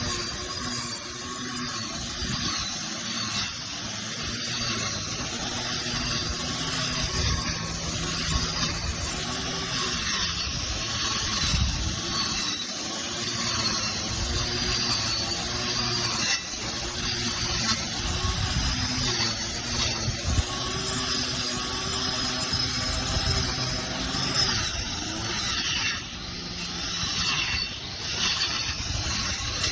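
Battery-powered 21 V weed trimmer with a cutting blade running continuously, its electric motor whine rising and dipping in pitch as the load changes while it cuts.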